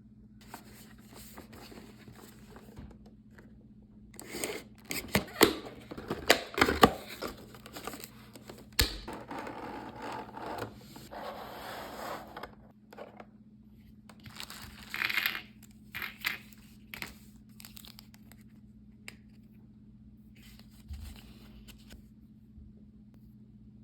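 Toy packaging being opened by hand: tearing, crinkling and scraping of cardboard and plastic, with a run of sharp clicks and snaps about four to nine seconds in and shorter rustles later. A faint steady hum sits underneath.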